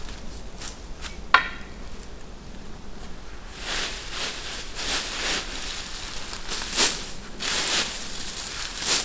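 A series of short scraping or rustling strokes, every half second to a second, with one sharp clink that rings briefly about a second and a half in.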